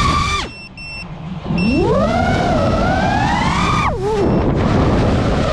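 FPV freestyle quadcopter's motors whining, the pitch swooping with the throttle. The whine falls almost away about half a second in as the throttle is cut. It rises steeply at about a second and a half as the throttle is punched, holds high, then drops sharply near four seconds.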